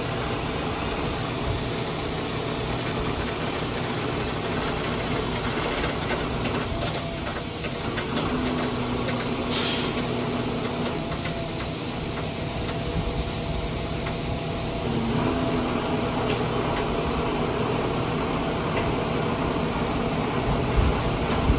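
Tri-axle dump truck's diesel engine running steadily while crushed stone pours from the raised tailgate in a continuous rush onto the pavement.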